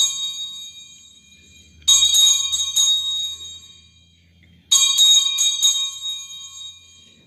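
Altar bells shaken, a bright jingling ring that dies away over about two seconds: one ring fading at the start, then two more about two and five seconds in. These are the bells rung at the elevation of the chalice during the consecration at Mass.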